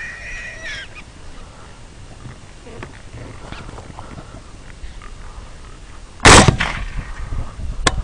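AR-15 rifle shot about six seconds in: one sharp, very loud crack with a short ringing tail, followed by a fainter crack near the end. In the first second, a high-pitched animal call.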